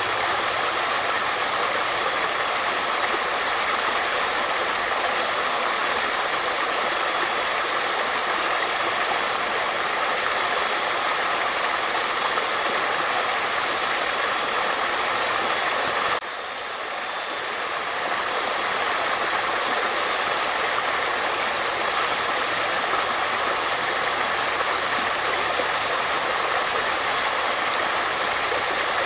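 Flowing water: a stream's steady rushing, babbling flow. About halfway through it drops suddenly in level and swells back over a couple of seconds.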